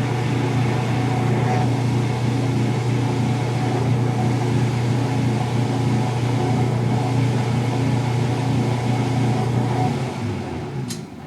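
1988 Kenmore washing machine running its spin cycle: a steady motor hum with a fast repeating whir. Near the end the spin slows and the sound falls away, and a single sharp click comes just before it stops.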